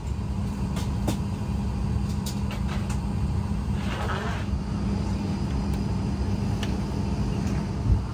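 Steady low rumble and hum of a Boeing 737 MAX 8 heard inside the passenger cabin, with a few faint clicks and a brief rustle about four seconds in.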